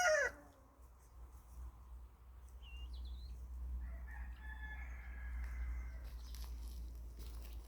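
A loud peafowl call ends with a falling pitch a moment into the sound. Then come faint short bird chirps over a steady low rumble.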